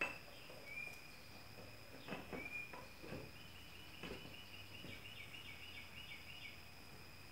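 A few faint, light clicks and knocks of metal valvetrain parts being handled as a K20A2 rocker arm assembly is put together on its shafts, the sharpest click right at the start. Under them runs a faint steady high tone, with a run of quick faint chirps in the middle.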